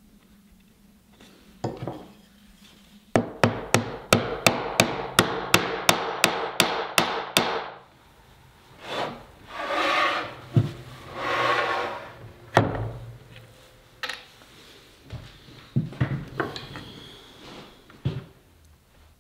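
A hammer tapping a wooden butterfly key down into its mortise in a cherry board: about a dozen quick, even strikes, about three a second. Then rubbing and a few single wooden knocks as the board is handled on the bench.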